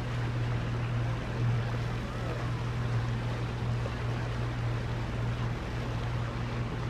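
A boat's engine running steadily under way as a low, even hum, with a haze of water and wind noise over it.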